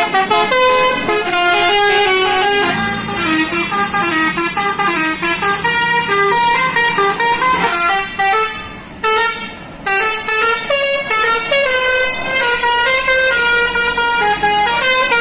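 Tour bus basuri horns, the multi-tone melodic horns of Indonesian buses, playing a fast stepping tune of short notes. Briefly broken a little before 9 s, then picked up again.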